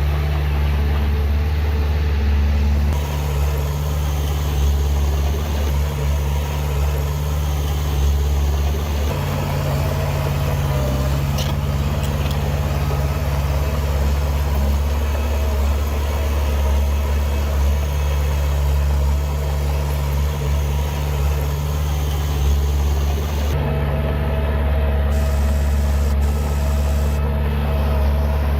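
Heavy diesel engine of earthmoving machinery running steadily with a deep, even drone, its note shifting slightly a couple of times.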